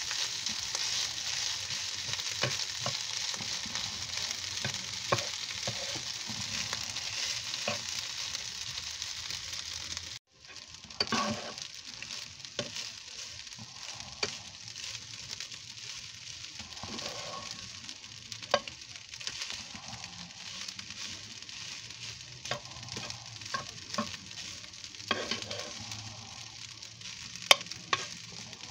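Garlic fried rice sizzling in a frying pan while a slotted metal spatula stirs and scrapes it, with scattered sharp clicks of the spatula against the pan. The sizzle is louder at first, cuts out for a moment about ten seconds in, and then carries on more quietly.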